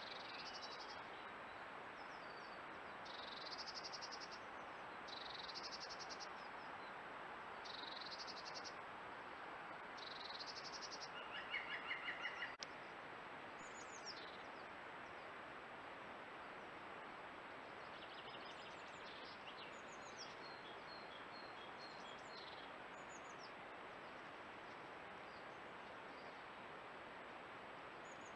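Woodland birds singing over a steady hiss from a trail camera's microphone. A short high phrase repeats every two seconds or so, a louder fast trill comes about twelve seconds in and stops abruptly, and scattered chirps follow later.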